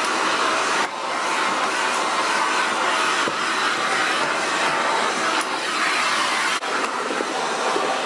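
Shark NV680 Powered Lift-Away vacuum cleaner running steadily, its nozzle drawn over carpeted stair treads: a constant rush of air with a faint steady whine. The sound dips briefly twice, about a second in and near seven seconds.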